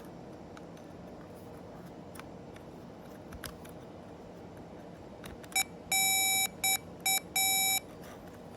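Electronic continuity tester beeping in five uneven bursts, two longer and three short, as its probe makes and breaks contact on a wiring-harness connector pin; the beep signals a continuous circuit through the wire. The beeps start a little past halfway, over a low steady hum.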